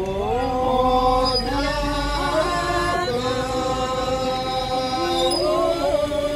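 A group of men and women singing a slow traditional chant-like song in unison, drawing out long held notes that step up and down in pitch.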